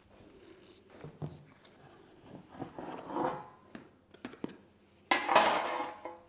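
Metal baking tin and dishes handled on a kitchen counter: light knocks and clicks, then a louder scraping clatter about a second long about five seconds in.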